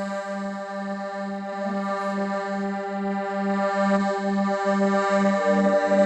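Accordion playing in G minor: a low G repeated about two and a half times a second under a sustained chord, with the upper notes changing near the end.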